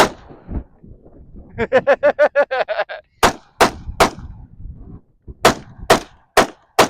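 Gunshots from a firearm fired in quick strings at targets: three shots about 0.4 s apart, a short pause, then four more. Earlier there is a single sharp report at the start and a fast rattling run of about ten pulses.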